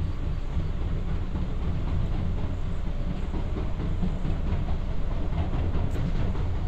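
Interior running noise of a Kawasaki–Nippon Sharyo C751B metro train moving out of the station: a steady low rumble with light wheel clicks on the rails. A single sharp click sounds about six seconds in.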